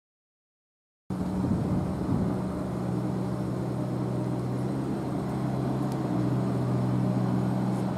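Silence for about the first second, then steady street ambience dominated by the constant low hum of an idling motor vehicle engine.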